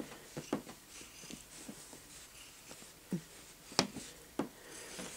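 Faint rustling and a few soft scratchy ticks as a cat's claws scrabble and snag on a fabric bedspread while it slips toward the edge of the bed; the sharpest tick comes a little before four seconds in.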